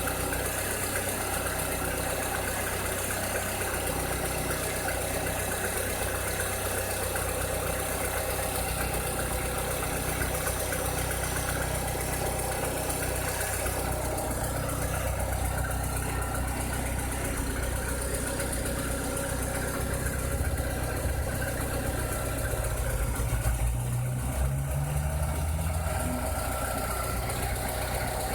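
Volkswagen Space Fox 1.6 flex engine idling steadily, with the engine note rising slightly for a few seconds near the end. The owner presents this running as the engine making a strange noise.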